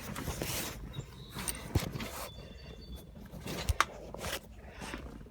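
Scuffing and rustling of a person getting down onto the ground on his stomach, with a few light knocks and clicks.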